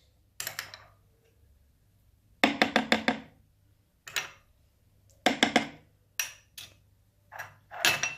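A spoon knocked against the rim of a container in short quick runs of four or five ringing taps, with single taps between, as sauce or harissa is shaken off it.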